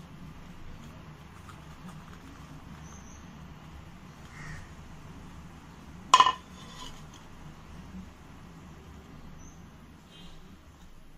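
Wire whisk stirring flour gently into an egg, sugar and oil cake batter in a bowl, quietly, over a low steady hum. Crows caw faintly in the background, and one brief, sharp, loud sound comes about six seconds in.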